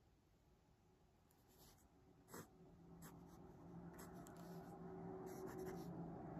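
Pen strokes scratching on paper in short, separate bursts, with one sharp tap about two and a half seconds in. A faint steady hum comes up in the second half.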